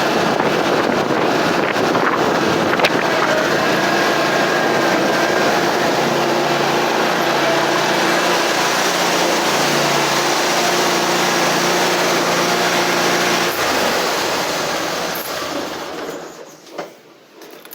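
Bad Boy MZ Magnum zero-turn mower's 25 hp Kohler engine running steadily and loudly. It is shut off about 13 to 14 seconds in and winds down to quiet over the next two or three seconds.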